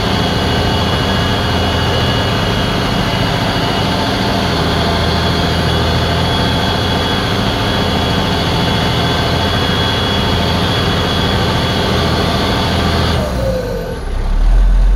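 Fendt 916 Favorit tractor's six-cylinder diesel engine running steadily under load while pulling a plough, heard from inside the cab, with a high whine over the engine note. About 13 seconds in the whine cuts out and the engine note drops and changes, then swells deeper near the end.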